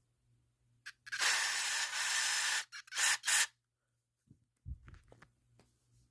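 Aerosol can of smoke-detector test smoke being sprayed: a click, then one long hiss of about a second and a half followed by three short bursts. A few low handling bumps follow near the end.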